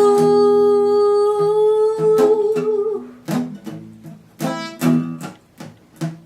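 A woman singing one long held note on the word "drool" over acoustic guitar, the note wavering and ending about three seconds in. After it the guitar plays alone in evenly spaced strummed chords.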